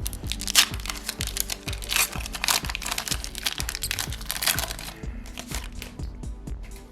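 Foil booster-pack wrapper crinkling and being torn open by hand, over background music with a steady beat; the crinkling stops about five seconds in.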